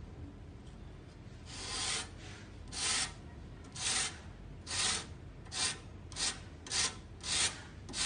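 Stainless steel air-conditioner fin comb scraped through the thin metal fins of a condenser coil, straightening them. About nine scraping strokes begin about a second and a half in, growing shorter and quicker toward the end.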